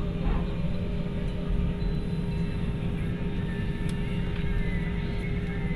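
Airbus A320 cabin noise while taxiing: the jet engines running at idle thrust give a steady low drone with a constant tone over it.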